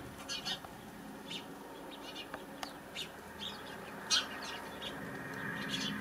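House sparrows chirping: short, high chirps repeated irregularly, one louder about four seconds in, over a faint steady low hum.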